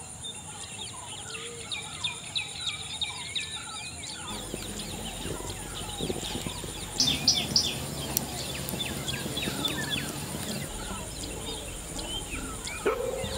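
Birds chirping and calling in quick, overlapping short calls, over a steady high-pitched buzz. Three louder sharp calls come close together about seven seconds in.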